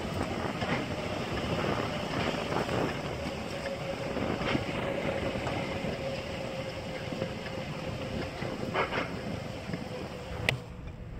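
A truck creeping over a mud-covered road strewn with rocks and debris, heard from inside the cab: steady road and engine noise with tyres crunching over stones, a faint steady whine, and a few sharp knocks, the sharpest near the end.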